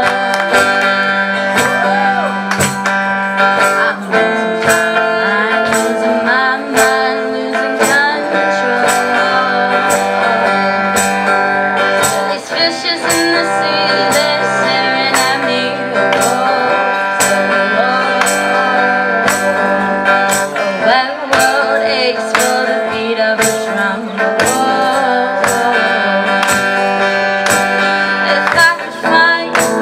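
Song performance: guitar and a singer's voice over a steady beat.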